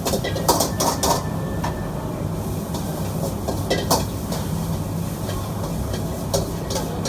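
Stir-frying in a wok: a metal spatula clinks and scrapes against the wok several times, over a steady low rumble from the stall's wok burner.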